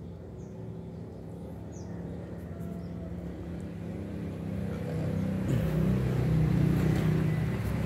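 A motor vehicle's engine running and growing steadily louder as it draws near, with a shift in pitch about five and a half seconds in. A couple of faint high bird chirps sound early on.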